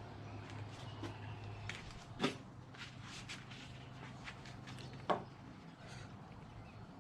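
Two sharp knocks about three seconds apart, with faint ticks and clicks, over a low steady hum that fades away in the first few seconds.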